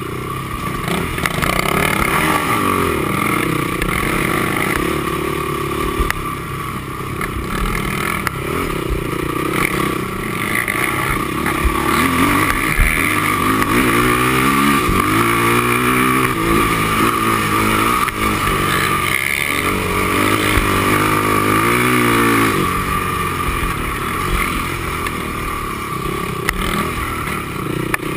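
Honda TRX450R quad's single-cylinder four-stroke engine running hard under race load, its revs rising and falling again and again as the rider works the throttle and gears, with the quickest swings in the middle stretch.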